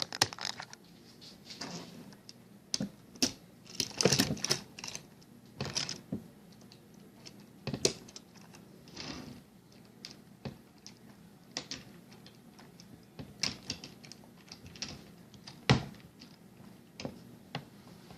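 Model freight train cars being handled and coupled together by hand: irregular small clicks and clatters every second or two, with a sharper click about three-quarters of the way through.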